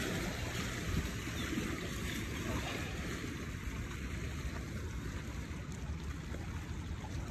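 Steady wind rumbling on the phone's microphone, with sea water lapping and washing against shoreline rocks.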